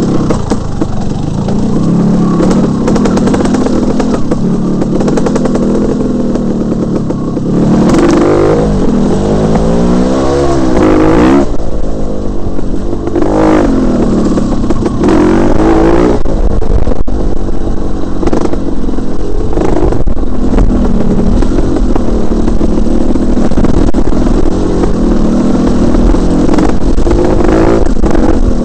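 Dirt bike engine running under load, revving up and down with the throttle. Its pitch climbs and falls repeatedly about a third of the way through, then settles into steadier running.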